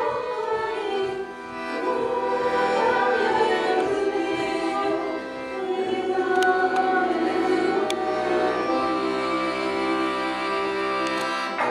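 Russian folk choir singing in harmony, mostly women's voices, with button accordion (bayan) accompaniment; sustained chords with brief breaks between phrases.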